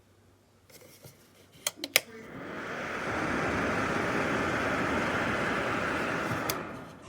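Small 500W PTC fan heater switched on with a couple of clicks, its fan spinning up over about a second and then running with a steady rush of air, fading away near the end.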